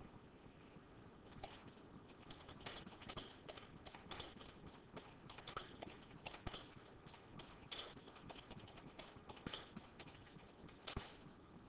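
Faint, irregular clicking and tapping: many short knocks at an uneven pace over a low hiss.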